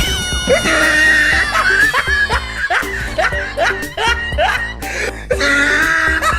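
Background music with a comedic laughing sound effect over it, opening on a loud sudden hit.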